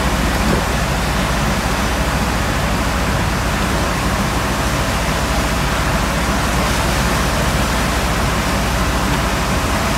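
Seawater washing across a tanker's steel deck as waves break over the side, a steady loud rushing noise with a low steady hum underneath.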